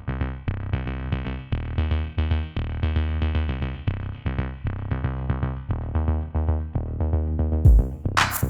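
Electronic intro jingle: synthesizer notes over a drum-machine beat with a strong bass. Near the end a deep bass hit and bright, crash-like bursts come in.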